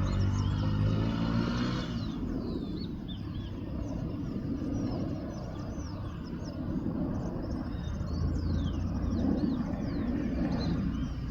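A low engine rumble, strongest for the first two seconds and then steadier, with many birds chirping throughout.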